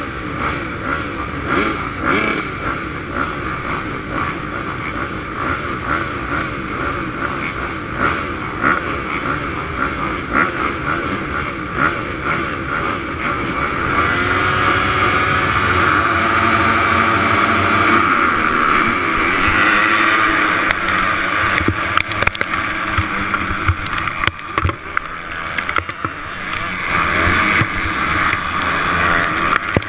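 A pack of motocross dirt bikes at the starting gate, engines running and being revved, then brought up and held at high revs together. Partway through they launch off the line and run at full throttle, with the onboard bike's own engine loudest.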